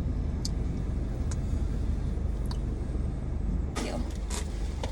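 Car interior noise while driving: a steady low rumble of engine and road. A couple of short bursts of noise come near the end.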